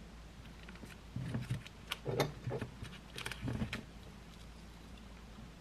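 A few light clinks and knocks as a metal fork is picked up off a ceramic saucer and handled over a cupcake, bunched between about one and four seconds in, over a faint steady room hum.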